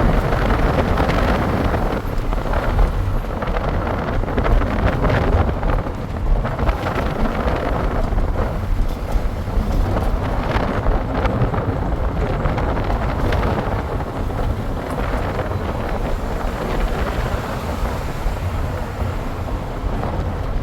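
A moving vehicle on the road: a steady rumble of engine and road noise, with wind buffeting the microphone.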